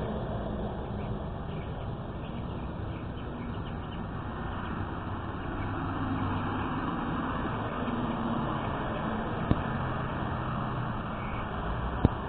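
Steady road traffic noise of passing cars, with two sharp clicks near the end.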